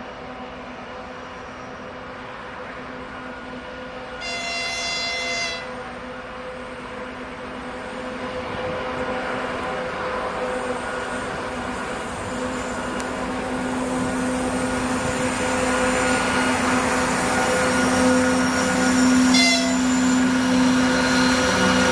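2TE25KM twin-section diesel-electric freight locomotive running as it approaches and passes, its engine drone growing steadily louder. A single horn blast of about a second and a half comes about four seconds in, and a brief second toot comes near the end.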